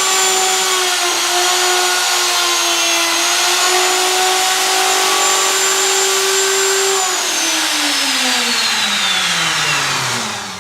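Butt router of a Norfield 350H hinge routing station running at full speed with a steady high whine while it cuts a sample hinge mortise in a door. About seven seconds in it is switched off and winds down, its pitch falling steadily until it stops.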